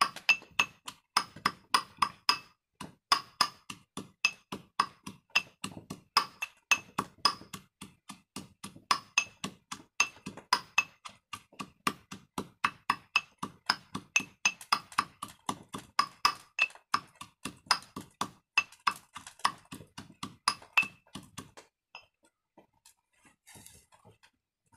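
Masala being pounded by hand: a steady run of strikes about two or three a second, each with a short ringing clink. The pounding stops about 22 seconds in.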